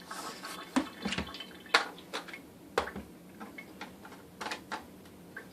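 Plastic water reservoir of a Nerf water gun being handled while it is filled at a sink: irregular clicks and knocks, with a little dripping water.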